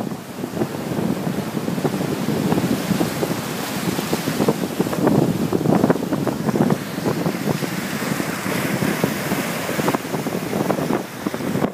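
Surf breaking in small waves and washing up a sandy shore, mixed with wind buffeting the microphone in irregular gusts.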